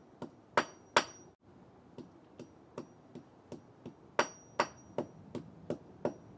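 Hammer blows on a Dell laptop power adapter cord: about fifteen strikes at two to three a second, the four hardest ringing with a brief high metallic ping.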